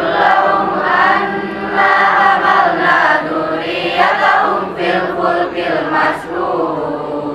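A large group of teenage school students singing together in unison, with many voices blending into one sustained group song.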